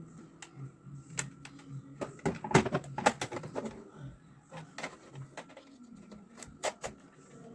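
Clicks, knocks and rustles of a toy rifle and its box being handled while it is unpacked, with a busy cluster about two to four seconds in and a few sharper clicks later on.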